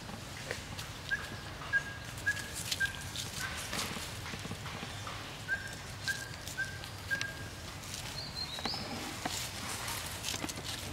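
Light footsteps and rustling in dry leaf litter and sand, with scattered soft clicks. Over it, short even high whistled notes repeat about ten times, mostly in pairs, in the first seven seconds, and one brief higher rising note follows.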